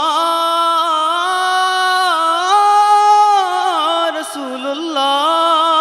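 A man singing a long wordless melismatic passage of a Bengali naat, his voice sliding and bending through the notes with one long held note near the middle.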